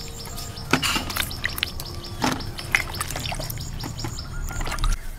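Water splashing and sloshing in a plastic tub as hands wash peeled fruits, with irregular knocks and clicks as the wet fruits are handled. Birds chirp now and then in the background.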